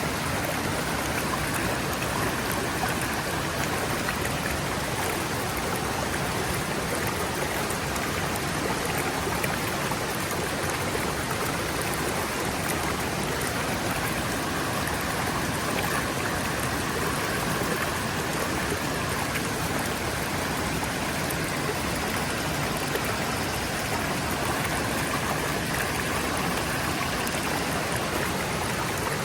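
Forest stream running over rocks: a steady, even rush of flowing water.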